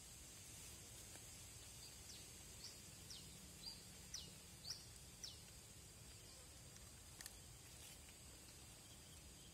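Faint bird calls: a run of short, quick downward-sliding chirps, one or two a second, over a steady high hiss of outdoor background.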